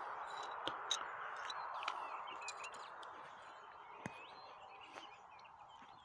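Small songbirds chirping and warbling in short phrases over a steady rushing background noise that slowly fades, with a few sharp clicks.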